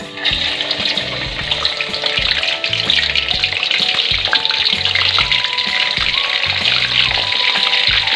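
Pre-boiled chicken pieces deep-frying in hot vegetable oil in a wok: a loud, steady sizzle that starts suddenly as the first piece goes in. Background music with a bass line plays over it.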